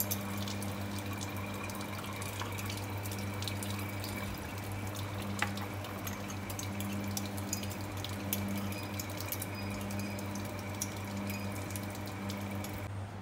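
Tap water running through a water aspirator into a lab sink, a steady rush with a low hum, pulling vacuum for Büchner-funnel filtration. Scattered small clicks are heard as liquid is drawn through the filter. The rush cuts off just before the end.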